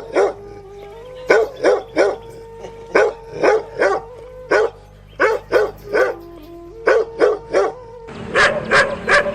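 A dog barking repeatedly in quick bursts of two or three barks, a little under a second apart, about six bursts in all. About eight seconds in the background turns to a steady hiss while the barking goes on.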